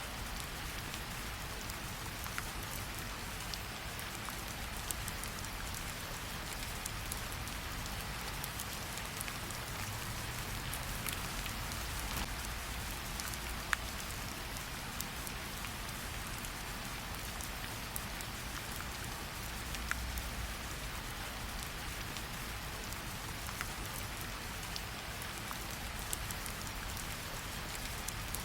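Steady rain falling, mixed with a campfire crackling: an even hiss of rain with scattered sharp pops, one louder pop about fourteen seconds in.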